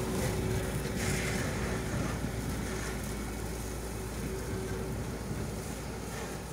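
Wind buffeting the microphone over a steady low engine rumble, with a faint steady tone for the first five seconds or so.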